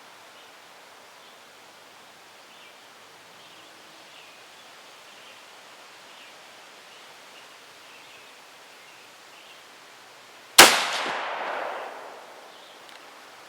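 A single rifle shot from an Israeli Kar98k Mauser chambered in 7.62x51mm NATO, firing Hirtenberger surplus ball, near the end: a sharp report that rings out and dies away over about a second and a half, over a faint outdoor background.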